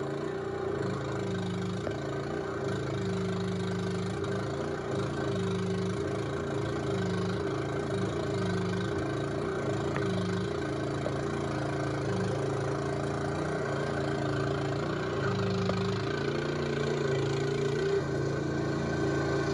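Small skid steer loader's engine running steadily, with a low tone in its sound switching on and off every second or so as it works.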